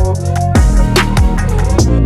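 Background music: an electronic track with a heavy bass line and a drum hit about every half second.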